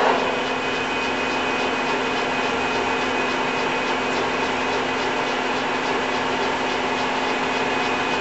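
Clausing Colchester 21-inch geared-head lathe starting up with its spindle set at 245 rpm: a clunk right at the start as it kicks in, then the headstock gearing and motor run steadily with a hum and a thin high whine.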